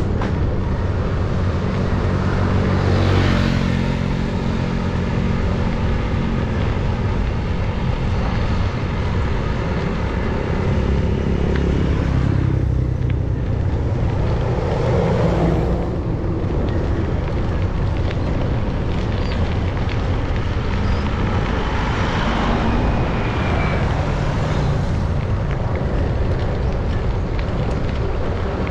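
Steady rushing wind and road noise from riding a bike along a roadside path. Motor vehicles pass on the road now and then, swelling and fading: about three seconds in, between about twelve and sixteen seconds, and between about twenty-two and twenty-five seconds.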